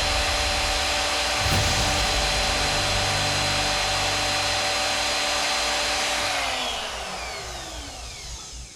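Electric power tool motor running at a steady high whine, then switched off about six seconds in, its pitch falling as it spins down and fades.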